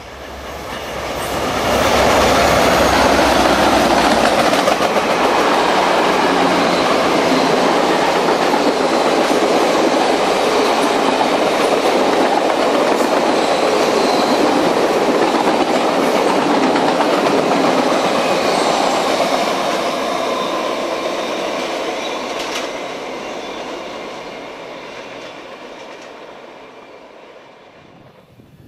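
Passenger train passing close by, led by CSX F40 diesel locomotives: a low engine rumble as the locomotives go by at the start, then the steady rolling noise of the passenger cars' wheels on the rails, dying away over the last several seconds as the train recedes.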